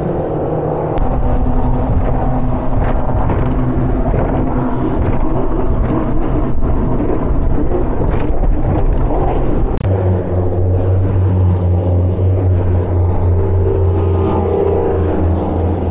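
Outboard engines of fast powerboats running hard at speed, with the rush of wind and water. About ten seconds in the sound changes abruptly to a steadier, deeper engine drone.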